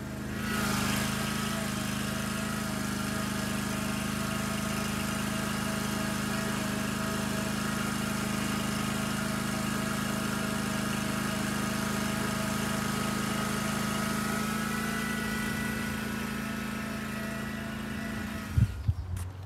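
Riding lawn mower engine running at a steady speed while the mower is driven along the street, holding an even pitch with a light whine on top. Near the end it drops away, with a few sharp knocks.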